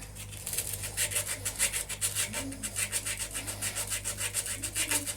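Corroded inverter cable ends being abraded by hand with rapid back-and-forth scraping strokes, about four or five a second, starting shortly in, to clean off the oxidation.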